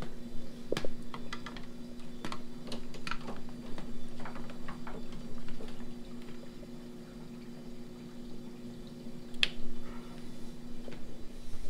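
Scattered clicks and light knocks from plugging in and handling a pump's power cord, plug and controller, with one sharper click near the end. Under them runs a steady hum from running aquarium sump equipment.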